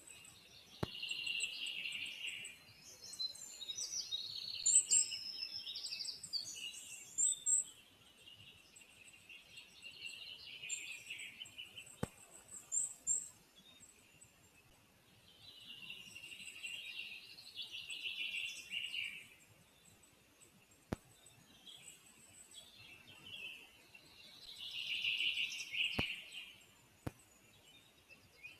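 Songbirds singing in the forest: a trilling song phrase of a few seconds, repeated four times, with faint high ticking calls in between.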